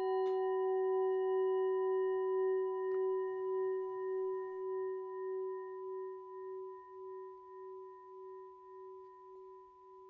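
Metal singing bowl ringing on after a single strike, its tone fading slowly with a steady wavering pulse, sounded to close the yoga practice.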